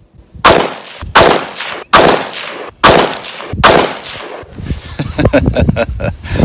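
Five rifle shots from an ATI Alpha Maxx AR-15 in 5.56 NATO, fired about 0.8 s apart. Each is a sharp crack with a short decaying tail. Quieter clicking and handling noises follow after the fifth shot.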